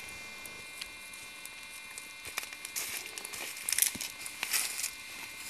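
Wood campfire crackling with scattered snaps, mixed with rustling from people moving and handling things beside it, which grows louder in a few bursts midway.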